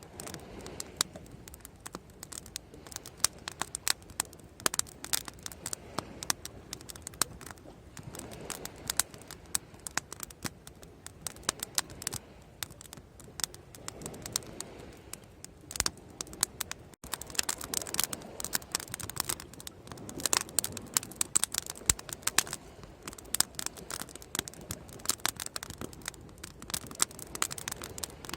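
Bonfire crackling: irregular sharp pops and snaps from the burning wood over a soft steady background hiss, the pops coming thicker and louder in the second half.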